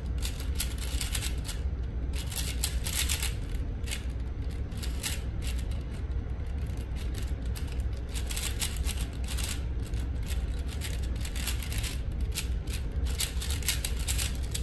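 Plastic 4x4 Rubik's Cube being turned rapidly by hand: a constant irregular clatter of layer clicks, over a low steady hum.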